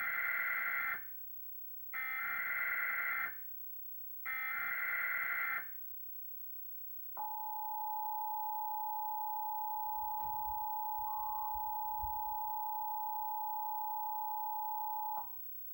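Emergency Alert System SAME header: three bursts of screeching digital data tones about a second each, separated by short pauses. Then the EAS two-tone attention signal (853 and 960 Hz sounding together) holds steady for about eight seconds and cuts off sharply.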